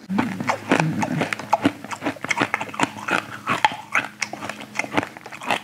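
A man huffing and blowing air through pursed lips, with rapid, irregular puffs, lip smacks and sucked-in breaths, as he reacts to the sting of extreme sour candy on his tongue.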